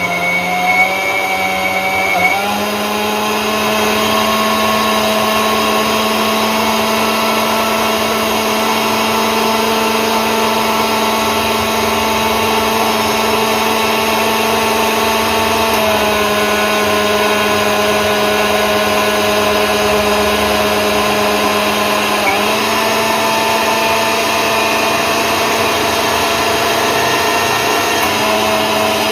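A 900-watt mixer grinder's motor running steadily under load as it grinds onion and tomato gravy in its 500 ml jar. Its pitch steps up slightly about two seconds in and shifts a little twice later.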